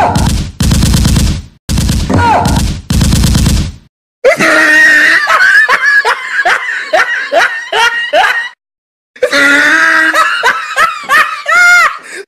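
Four bursts of rapid automatic gunfire, a fake sound effect played from a small portable speaker, one after another in the first four seconds. Then loud laughter in quick repeated pulses that rise and fall in pitch, broken by a short pause.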